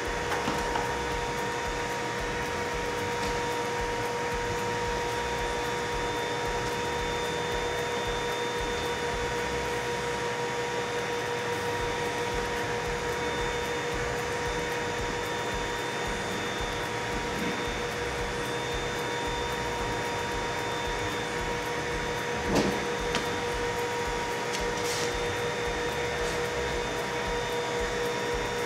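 Blower pressurizing an ASTM E1105 window water-test chamber, running steadily with a constant two-pitch hum while the chamber pressure stabilizes. There is a single knock about three-quarters of the way through.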